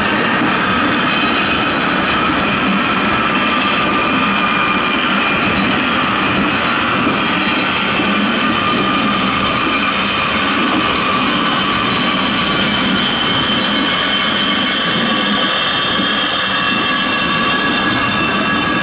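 Car of the Lynton & Lynmouth water-powered cliff railway running along its steep track: steady rumble of steel wheels on the rails, with several high squealing tones that drift slightly in pitch.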